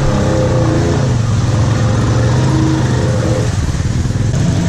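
ATV engine running steadily at low speed as the quad crawls along a muddy, flooded trail.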